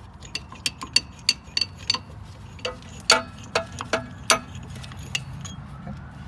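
Screw-type brake caliper piston compression tool being unscrewed and taken off a rear brake caliper once the piston is fully compressed. About a dozen irregular sharp metal clicks and clinks, some with a short ring, grow loudest around three to four seconds in and then die away.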